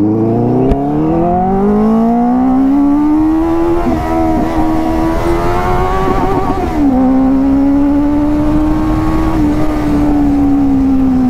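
Benelli 600i inline-four sportbike engine under way. Its note climbs over the first few seconds as it accelerates, holds, drops sharply once about seven seconds in, then holds again and falls away near the end as the throttle eases.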